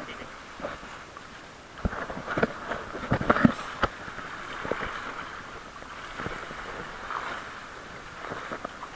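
Shallow seawater sloshing and splashing over rocks right at the microphone, with a few sharp splashes, the loudest about three and a half seconds in.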